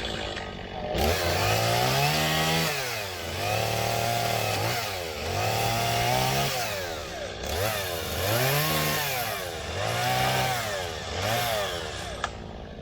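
Two-stroke chainsaw engine revved up and down about six times in a row, its pitch climbing and falling with each squeeze and release of the throttle, with a sharp click near the end.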